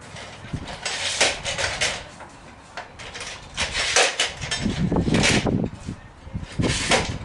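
Toughbuilt C700 steel folding sawhorse being handled: several bursts of metal clattering and rattling, each lasting up to about half a second.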